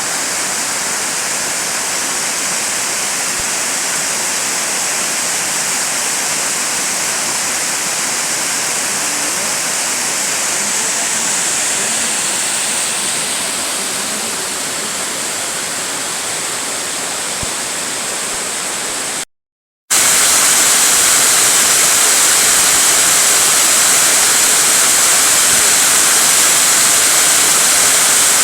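A mountain waterfall rushing steadily. About two-thirds of the way in, the sound drops out for about half a second and comes back louder and more hissing.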